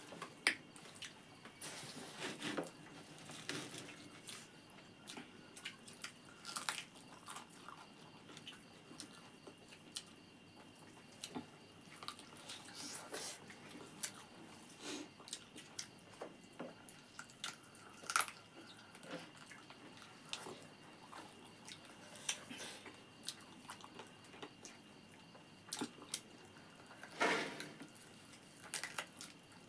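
Eating rice with chicken curry: faint wet chewing, with mouth clicks and smacks at irregular moments.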